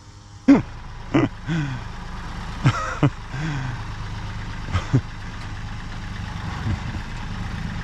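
An engine starts running about half a second in and then idles steadily. A few short, sharp sounds cut over it during the first five seconds.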